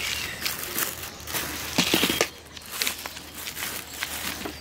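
Packaging crinkling and rustling as breakfast portion packs (chocolate-sprinkle sticks, margarine cups) are rummaged through and picked up from a basket, in irregular short crackles.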